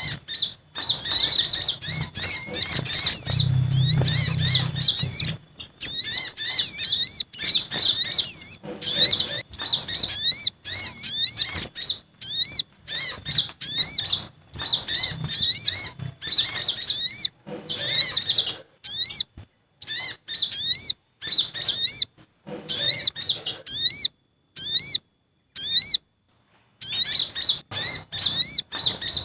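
Bird-lure recording of agitated sunbird calling, from brown-throated and olive-backed sunbirds: quick runs of high, thin, arching chirps repeated many times over, broken by short pauses.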